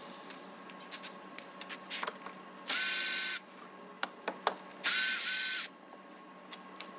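Cordless battery ratchet with a Torx 45 socket spinning out a timing-belt pulley bolt in two short runs of under a second each, about two seconds apart, each with a steady motor whine. Light clicks of the socket and tool on the bolt come between the runs.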